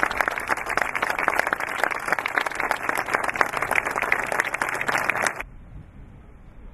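Audience applauding with dense clapping that cuts off abruptly about five seconds in.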